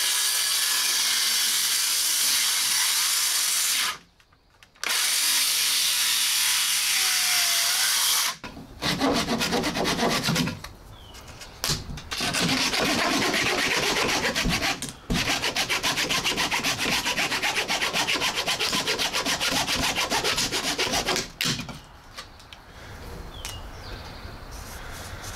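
DeWalt cordless circular saw cutting through a laminated wooden boat keel, trimming off the excess stock. It runs in several long stretches with short pauses and stops about 21 seconds in, after which a pencil scratches faintly along the wood.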